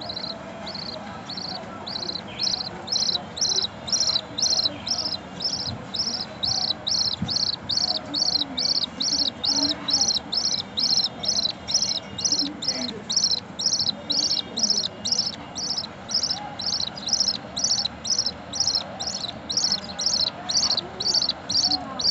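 Ten-day-old budgerigar chick cheeping over and over in a steady rhythm, about two high chirps a second: the begging call of a nestling budgie.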